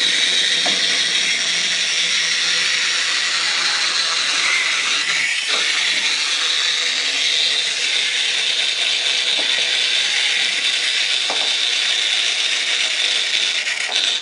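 A steady, loud hiss with a faint high whine running in it, a few faint knocks, cutting off abruptly at the end.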